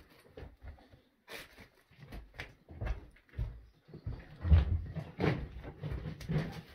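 Footsteps crunching and scraping over broken plaster and debris on a floor, irregular steps with knocks, the heaviest about four and a half seconds in.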